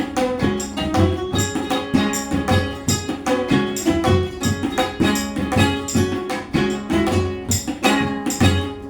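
Ukulele melody played over tabla drumming, with a steady, even beat.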